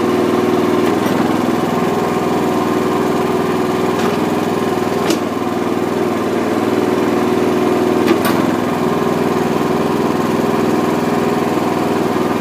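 Small gasoline engine of a Harbor Freight ride-on trencher running steadily at about 2,400 rpm, driving its hydraulic pump while the boom cylinders are worked; its note shifts slightly as the hydraulics take load. Brief sharp clicks come about five and eight seconds in.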